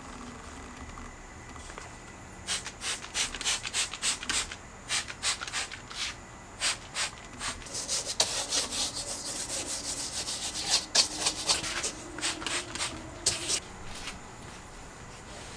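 A microfiber towel rubbed over a car's interior door panel in quick, short strokes. The strokes start about two and a half seconds in, crowd together in the middle and stop about two seconds before the end.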